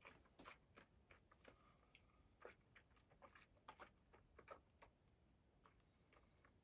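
Faint wet mouth clicks and lip smacks from a person tasting whisky, working it around the mouth: an irregular run of small clicks that thins out near the end.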